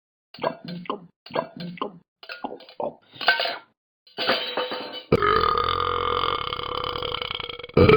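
Burping: a quick run of short burps, then one long drawn-out burp lasting about three and a half seconds from about four seconds in, ending in a loud final burst near the end.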